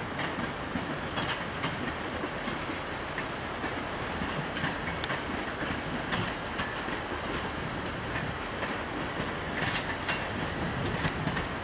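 Passenger train cars, dome cars and coaches, rolling past: a steady rumble of steel wheels on rail with scattered clicks over the rail joints, more of them near the end.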